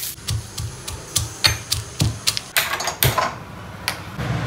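Steel pestle pounding garlic in a small steel cup: a run of sharp metallic strikes, about three a second, stopping shortly before the end.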